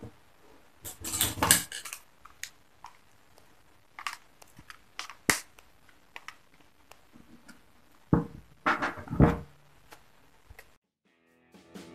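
Small metal parts of a Yamaha Autolube two-stroke oil pump being handled during reassembly: scattered clicks and scrapes as pliers tighten its nut, then a few louder knocks about eight seconds in as the pump is set down on the bench, and a brief cut to silence near the end.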